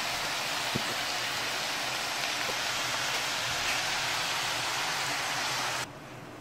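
Turkey and a heap of fresh greens sizzling steadily in a cast iron skillet, with a few small spatter ticks. Near the end the sizzle suddenly drops and turns muffled as a glass lid goes on the pan to steam the greens.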